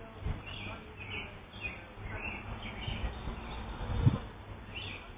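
Small birds chirping in quick, short, repeated high calls, over a low rumble with a few dull thumps, the loudest about four seconds in.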